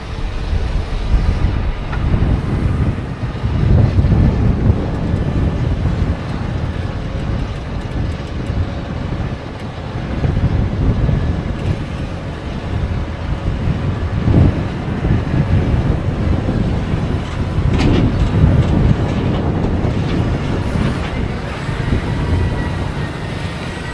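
Heavy farm machinery running: a dense, continuous low rumble and clatter that swells and eases, with a faint steady whine near the end.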